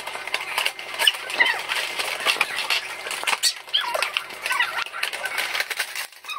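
Cardboard toy-kit boxes and plastic packaging handled and torn open by hand: irregular crinkling, rustling and scraping of card and plastic bags.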